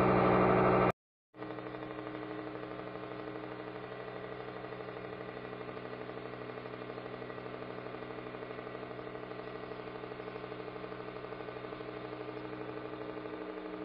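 Hydraulic press's pump motor running with a steady hum while the ram slowly descends and squashes a soft modelling-clay figure, with no crack or bang. The sound cuts out briefly about a second in, then the hum resumes evenly.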